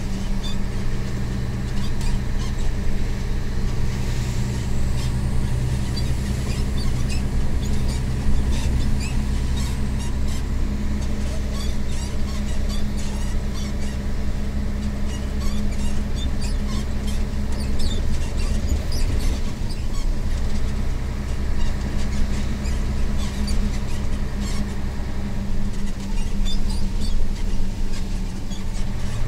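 Mercedes-Benz Actros MP1 2643 truck's V6 diesel engine running steadily while the truck drives along, heard from inside the cab. Many light clicks and rattles sound throughout.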